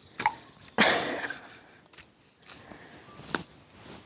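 Wellington boots squelching in wet peat bog, with one loud squelch about a second in that fades over half a second, and a sharp click near the end.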